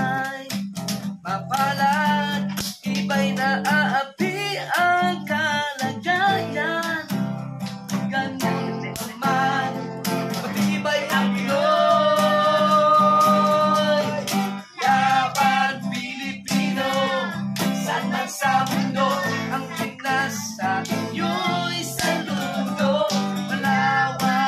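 Acoustic guitar strummed steadily while a man sings along. About halfway through he holds one long note.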